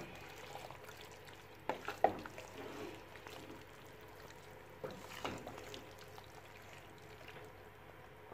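Thick vegetable soup being stirred in a pot as it cooks, with faint bubbling under the stirring and a few short stirring knocks, about two seconds in and again near five seconds.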